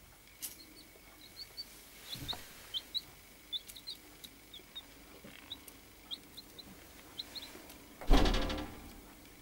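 Baby chicks peeping: short, high cheeps scattered throughout. There is a short rustle about two seconds in and a loud thump just after eight seconds in.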